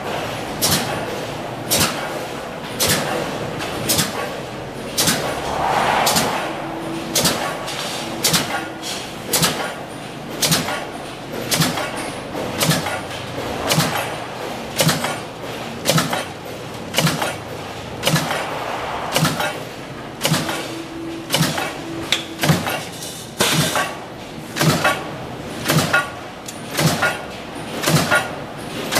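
Mechanical punch press stamping metal strip in a die, a sharp metallic clank about once a second over the steady running of the press and its strip feeder.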